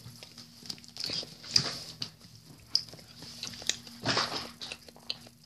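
Close-up mouth noises of chewing soft, chewy chocolate fudge: scattered wet smacks and clicks, with two louder bursts about a second in and about four seconds in, over a faint steady hum.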